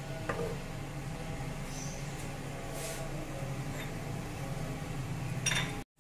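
Steady low kitchen hum with a few faint clicks of a silicone spatula against an aluminium pot while chopped garlic fries gently in oil; the sound cuts out briefly near the end.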